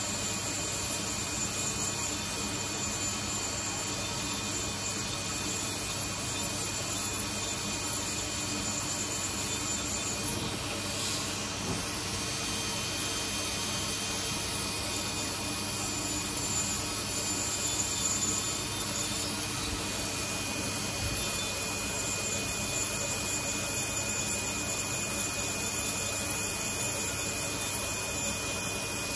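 Podiatry nail drill with a rotary burr grinding down a thickened ram's-horn toenail, a steady high whine over hiss.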